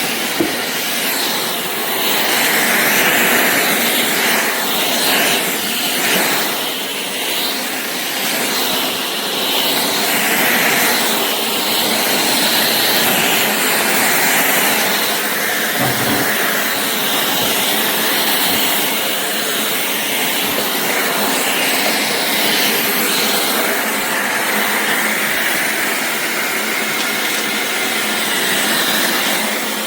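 Shark cordless stick vacuum running steadily at full suction, a loud even rushing whine with small swells in level.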